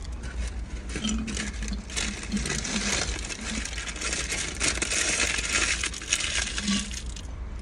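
Fizzy orange soda being sucked through a straw from a glass bottle: a long hissing slurp full of small clicks that stops about seven seconds in.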